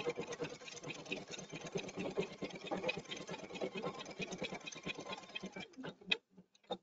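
Husqvarna Viking embroidery machine stitching at speed, a rapid even rhythm of needle strokes, as it sews out the first colour: the placement lines and number marks of a quilt-in-the-hoop block. The stitching stops shortly before the end and a few light clicks follow.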